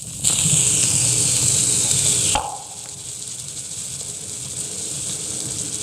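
Hiss and crackle of a 1913 Edison Kinetophone phonograph recording. It is loud for about the first two seconds, then a click, then a quieter hiss over a faint steady hum.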